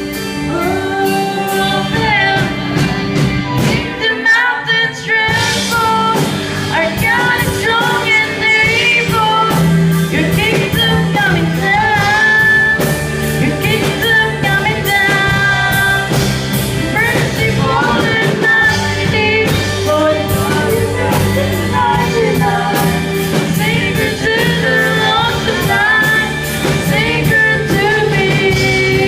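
Acoustic version of a worship song playing, a gliding melody line over steady sustained accompaniment.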